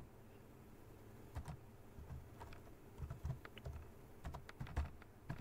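Computer keyboard being typed on: faint, irregular key clicks, sparse at first and coming faster from about three seconds in.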